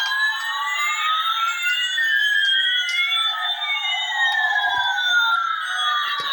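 Synthesized siren-like tones: several pitches gliding slowly up and down and crossing one another, each sweep lasting two to three seconds.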